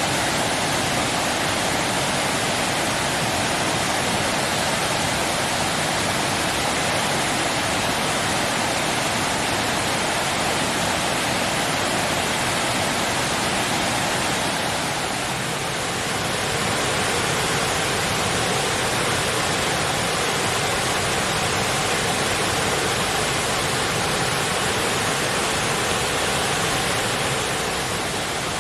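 Waterfall running steadily: a dense, even rush of falling water with no breaks.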